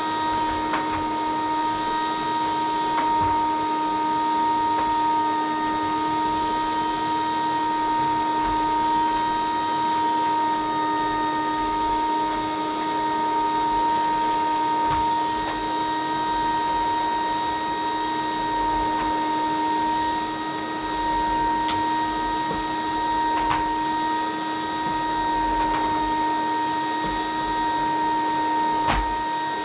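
Vacuum cleaner running steadily, a constant motor whine over the rush of air, with a few faint clicks and knocks as it is used.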